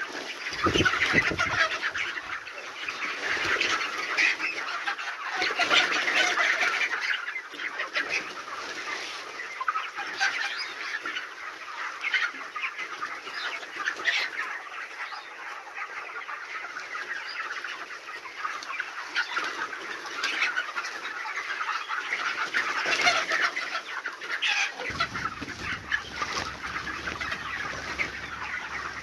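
A flock of young broiler chicks peeping continuously, a dense chorus of many high, short cheeps overlapping one another.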